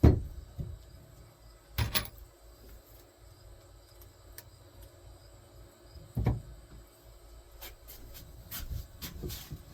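Wooden boards being handled and set down on a workbench: a sharp knock at the start, two more spread through the middle, and a run of smaller clicks and knocks near the end.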